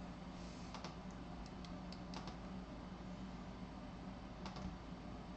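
A few faint, sharp clicks of a computer keyboard and mouse, spread unevenly over several seconds, with a low steady electrical hum underneath.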